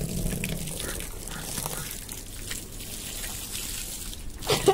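Water gushing from the open end of a black plastic pipe and splashing onto the ground. A brief, loud voice sounds near the end.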